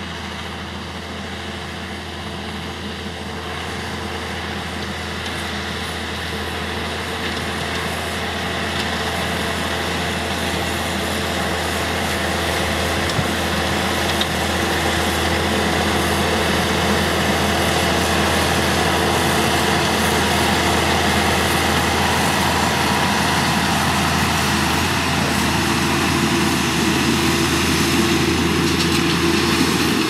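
Deutz-Fahr Agrotron 180.7 tractor's diesel engine running steadily under load while pulling a power harrow and seed drill. It grows louder over the first half as the tractor comes closer, then holds steady.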